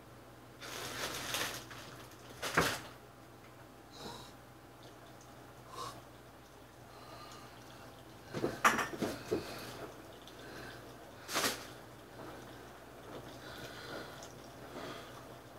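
Scattered eating and food-handling sounds: short rustles of a paper wrapper, with sharp clicks and knocks, a cluster of them about two-thirds of the way through.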